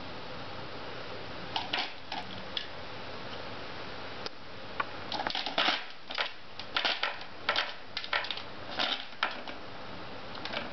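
Plastic track-ball cat toy rattling as a cat bats the ball round inside it: irregular sharp clicks and clacks in clusters, densest in the middle stretch, over a steady background hiss.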